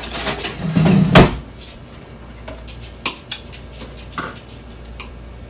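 Kitchen drawer opened and rummaged, utensils rattling, then shut with a sharp knock about a second in. A few light clicks follow as a wire whisk taps against a bowl of avocado.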